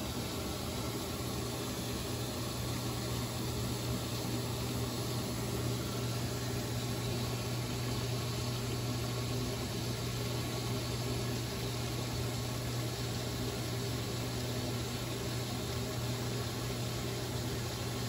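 Samsung Active WaterJet top-load washing machine running while it fills: water pouring into the tub as a steady hiss over a constant low hum from the machine.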